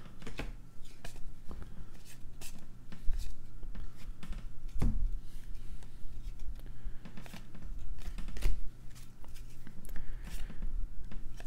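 A stack of 2020 Topps baseball cards being flipped through by hand, the glossy cards sliding off one another in irregular short clicks, with a louder knock about five seconds in.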